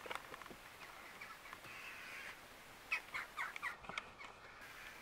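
Faint handling of wires and a red plastic quick-splice connector. There is a short scratchy rasp about two seconds in, then a quick run of small sharp clicks a second later as pliers squeeze the connector shut onto the power wire.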